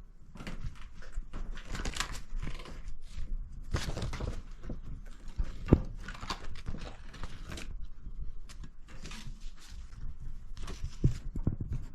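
Irregular handling noises: rustling, scraping and knocks, with one sharper, louder knock about halfway through.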